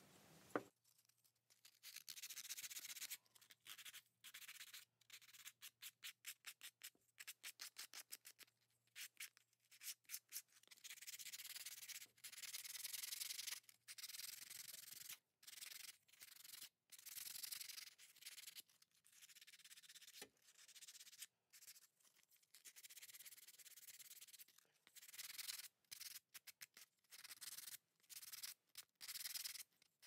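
Hand-sanding a painted wooden shorebird carving with a folded sheet of sandpaper, in repeated scratchy strokes. The strokes come quick and short for a stretch, then grow longer.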